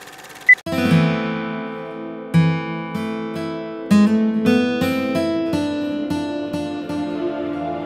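A single short high beep closing a film-leader countdown, pitched higher than the beeps before it, then strummed acoustic guitar music starts about half a second in, with chords struck about once a second and left to ring.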